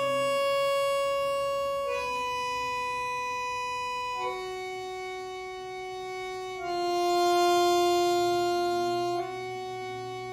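Bandoneon playing long, sustained single notes on the opening bellows in a slow, mostly descending line, changing note about every two seconds. The bellows pressure shapes each note's loudness: a note about two-thirds of the way in swells louder and then falls back, an exercise in even tone and phrase direction.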